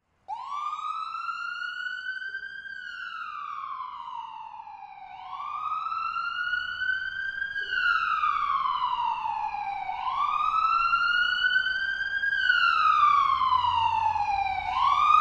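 Siren wailing in slow rising-and-falling sweeps, about one every five seconds, growing louder.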